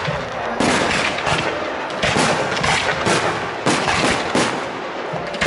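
Fireworks display: aerial shells bursting in a rapid run of sharp bangs, a few a second, starting about half a second in.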